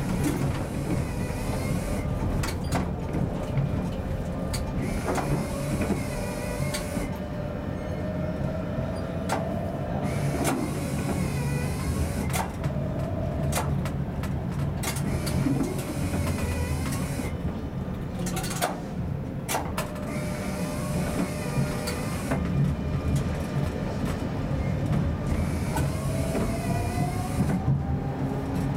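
Prague tram running along the track, heard from inside the driver's cab: a steady low rumble of wheels on rail, with the electric traction motor's whine rising in pitch twice as the tram picks up speed. Scattered short clicks are heard along the way.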